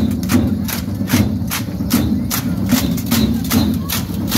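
Dance music with a steady beat of sharp percussive clicks, about two and a half strokes a second, over a continuous low drone of sound.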